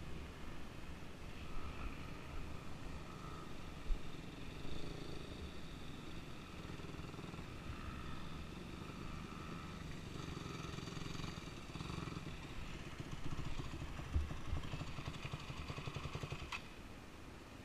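Dirt bike engines running at low revs. Near the end a second dirt bike rides up close and its engine's firing pulses come through plainly.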